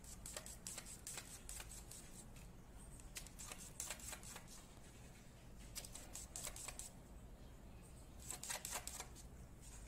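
A cat grooming itself, its tongue rasping over its fur in faint, quick clicky licks that come in short runs, the clearest about three, six and eight and a half seconds in.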